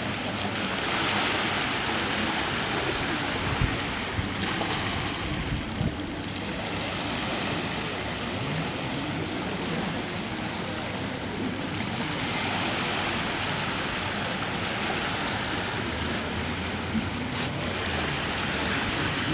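Steady rushing outdoor noise that swells and fades every few seconds, with a few faint clicks.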